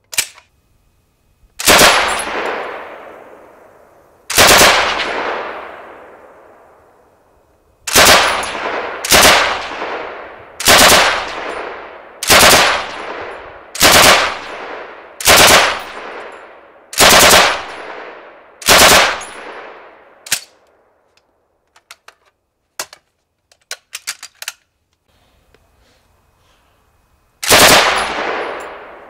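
Bren light machine gun firing about eleven short bursts, each followed by a long fading echo, most of them coming about one and a half seconds apart. A few faint clicks fall in the pause before the last burst.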